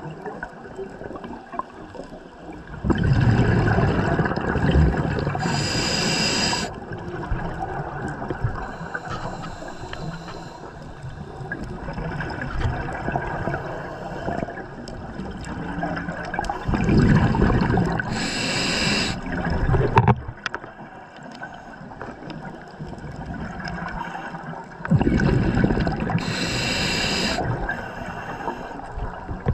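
Scuba diver breathing through a regulator underwater: three long, loud bubbling exhalations, each ending in a short high hiss, with a quieter underwater hiss between them.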